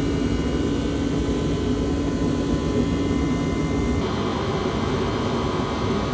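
Steady machine whir with a low hum under it, getting a little hissier about four seconds in.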